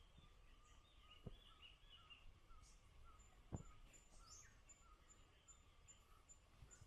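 Faint calls of several birds: short repeated chirps, joined about three seconds in by a thin high note repeated about twice a second. Two soft knocks break in, near the start and about halfway through.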